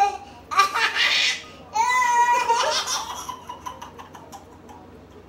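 A young girl laughing in loud, high-pitched shrieks, then trailing off into fainter short giggles over the last couple of seconds.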